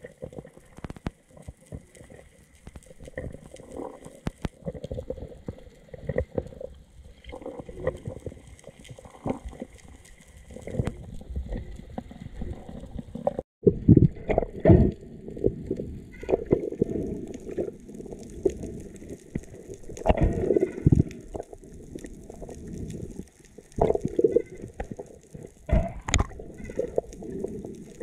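Muffled underwater sound picked up by an action camera's housing: water rushing and gurgling past it with irregular soft low thumps as the freediver swims. It cuts out briefly about halfway, then comes back louder.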